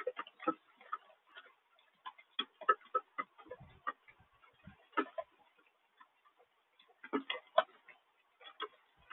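Raindrops tapping irregularly, heard as separate sharp ticks in loose clusters rather than a steady hiss, through a small outdoor camera's microphone.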